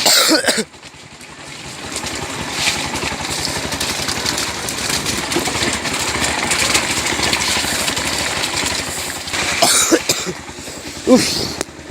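Motorcycle engine running steadily, with a brief louder sound at the very start and a couple of short louder bursts near the end.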